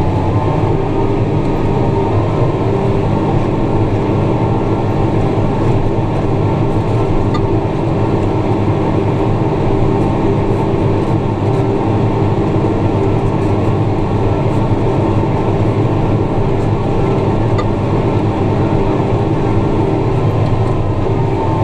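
Tractor engine running steadily under load while pulling a ripper through the ground, holding an unchanging pitch.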